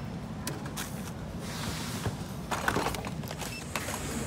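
Checkout-counter background noise: a low steady rumble with scattered small clicks and a short clatter about two and a half seconds in.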